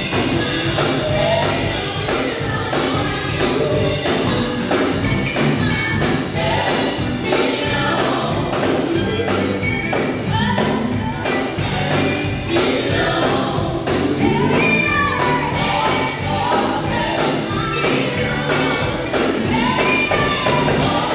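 Live gospel music: a group of women singing together into microphones, backed by a band of drum kit, electric guitars and keyboard.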